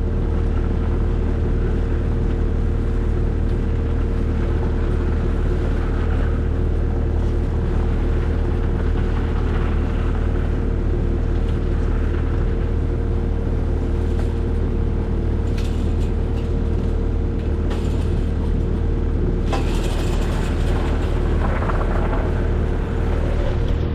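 Skid steer engine running steadily at an even speed as the machine is driven, with a few short knocks and rattles in the second half.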